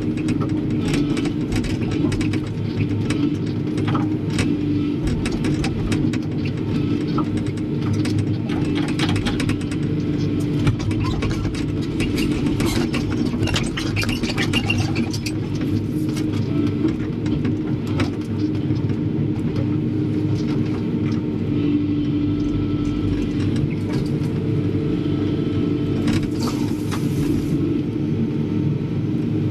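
Hydraulic excavator's diesel engine running steadily, heard from inside the cab, with scattered knocks and rattles from the bucket digging and dumping soil and rubble, and a short hiss near the end.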